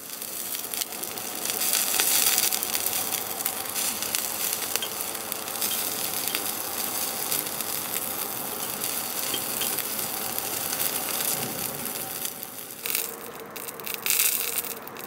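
Dak-galbi (marinated chicken) sizzling in a hot grill pan, a dense crackling hiss that thins out about 13 seconds in.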